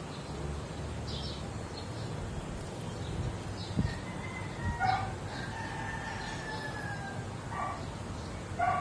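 A rooster crowing: one long drawn-out call about five seconds in, followed by two short calls near the end, with a few short high chirps before it.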